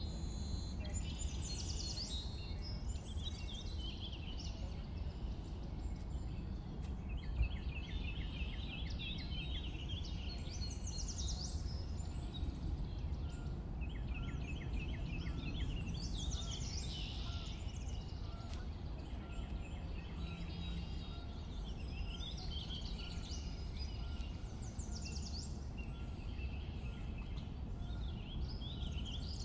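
Outdoor ambience: birds chirping and calling on and off throughout, including a few rapid trills, over a steady low background rumble.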